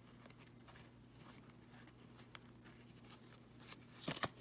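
Faint handling of a stack of hockey trading cards: soft ticks and slides as the cards are flipped through, with two sharper clicks about four seconds in.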